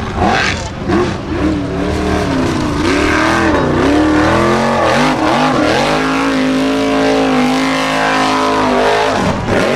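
Formula Offroad hill-climb buggy's engine revving hard on a steep dirt climb. The pitch swings up and down repeatedly, then holds high and steady for a few seconds before dropping briefly near the end.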